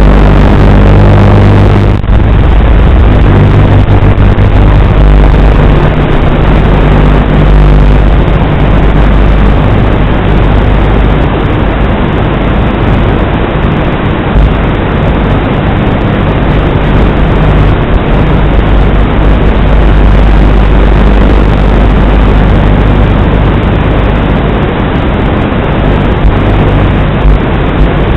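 Strong wind buffeting the microphone: a loud, continuous, rumbling noise, heaviest in the low end, with a faint steady low hum showing through in places.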